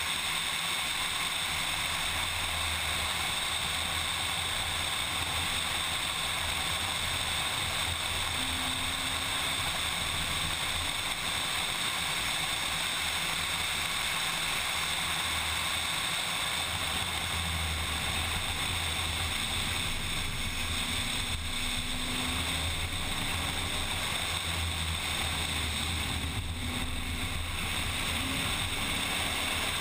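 Steady wind rush over a hood-mounted camera's microphone as a car runs at speed, with a low rumble from the car underneath that swells and eases.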